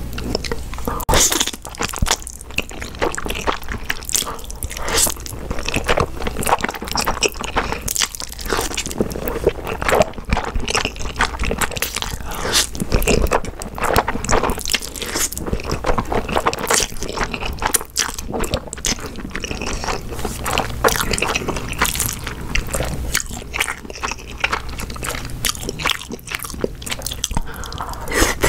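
Eating sounds of Chapagetti black-bean-sauce instant noodles: slurping mouthfuls of noodles and chewing, with a dense, irregular run of wet smacks and crunches.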